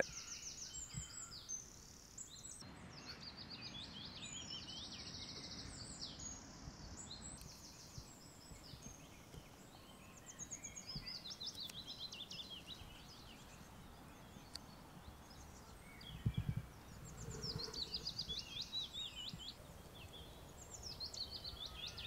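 Wild songbirds singing outdoors: repeated short phrases of high, rapid chirps and trills. A brief low thump about sixteen seconds in.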